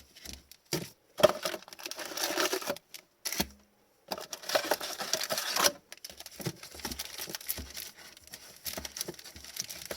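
Plastic wrapping on a box and packs of trading cards being torn and crinkled by hand, in two rustling stretches of about a second and a half each, with small clicks and taps between them.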